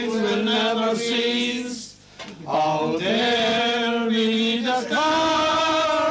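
A male voice singing a slow ballad, holding long drawn-out notes, with a short breath about two seconds in.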